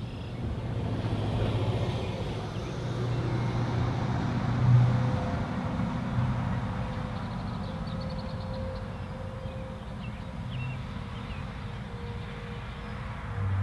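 A road vehicle passing by, its engine and tyre noise swelling to a peak about five seconds in and then fading. A faint steady tone of distant outdoor warning sirens runs underneath.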